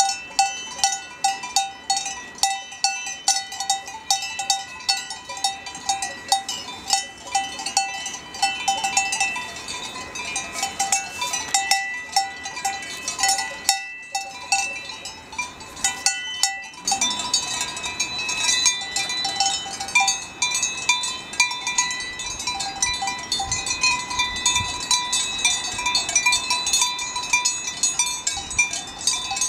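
Cowbells on grazing cows clanking irregularly as the animals move, several bells of different pitches. At first the nearest bell clangs about twice a second; just past halfway other, higher-pitched bells take over and ring more continuously.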